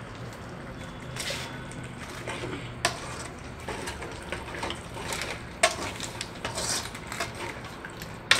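Steel spoon stirring chicken curry in an aluminium kadai, scraping and knocking against the pan with a few sharp clinks. A steady low hum runs underneath.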